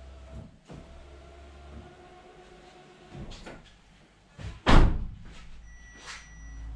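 A low steady hum, then a car door shutting once with a loud bang about two-thirds in, followed by a few lighter knocks.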